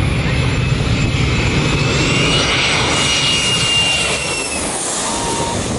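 Jet engines of a Boeing 737-300 (CFM56-3 turbofans) on low final approach, passing close overhead: a loud steady rumble with a high whine over it.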